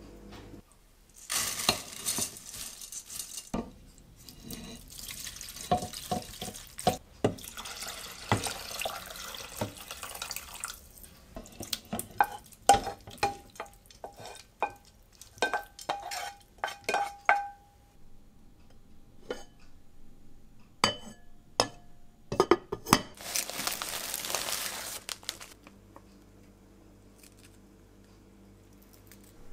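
Kitchen work sounds: a few bursts of running water, and between them a run of clinks and knocks of a wooden spatula and utensils against a metal rice-cooker pot, some ringing briefly.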